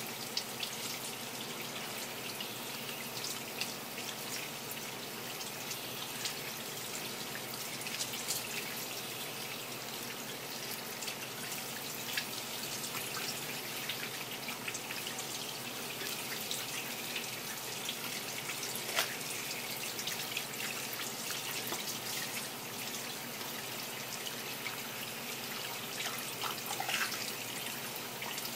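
Kitchen tap running steadily into a sink, with a few light clicks and knocks scattered through it, the clearest about two-thirds of the way in and near the end.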